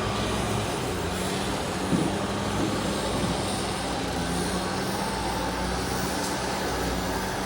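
CAT grapple bucket loader's diesel engine running steadily, a low even hum, with a brief knock about two seconds in.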